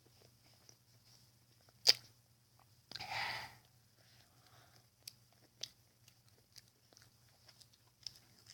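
Close-up chewing of a Pop-Tart, with scattered small mouth clicks. A sharp click about two seconds in is the loudest sound, and a short noisy burst follows about a second later. A low steady hum runs underneath.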